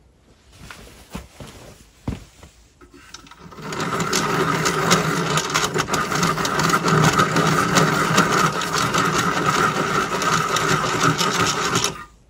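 Bench-mounted hand-crank pencil sharpener being cranked with a pencil in it, its cutters grinding steadily with a fine rapid chatter for about eight seconds, then stopping suddenly. A few light handling clicks come before it starts.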